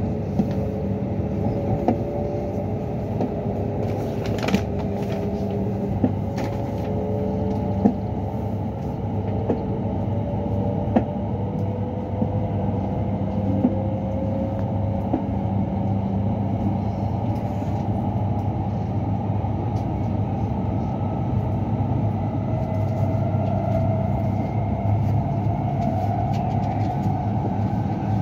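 Hokuriku Shinkansen train (E7/W7 series) running at speed, heard from inside the passenger car: a steady rumble and hum, with faint whining tones that slowly drift in pitch and a few light clicks.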